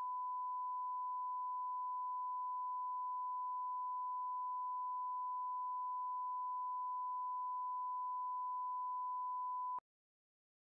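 Steady 1 kHz line-up test tone from a broadcast colour-bars leader, one unbroken pure tone that cuts off abruptly about a second before the end.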